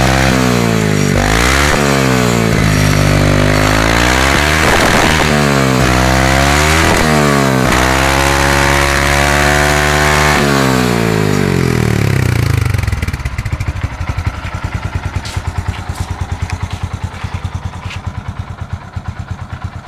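Yamaha FZ16's 153 cc single-cylinder four-stroke engine running through a custom free-flow exhaust, revved several times in quick blips with the pitch climbing and falling back. About two-thirds of the way through it drops to idle, where the exhaust pulses are distinct.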